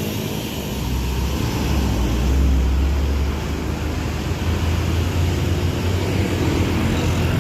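Diesel engine of a large intercity coach bus running as it pulls out past, a deep steady drone that swells to its loudest about two and a half seconds in, then eases off.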